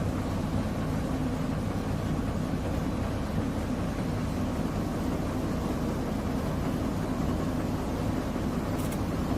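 Water-well drilling rig's machinery running steadily with a low engine drone. A short hiss near the end.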